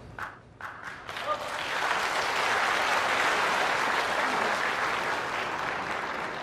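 Audience applause at a snooker match. It builds quickly from about a second and a half in, then slowly eases off.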